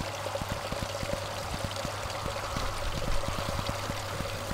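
Garden water feature: water pouring from a wooden box spout in several thin streams onto stones in a small rock-lined pool, a steady splashing trickle.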